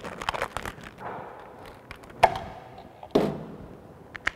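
Handling noises from a plumber's gloved hands and tools at a pipe fitting: a cluster of light clicks and rustles, then two sharp knocks a little under a second apart, the second with a short low ring, and a couple of ticks near the end.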